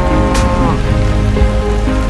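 Steady rain falling, layered under background music of held notes that bend downward partway through, with one sharp hit about half a second in.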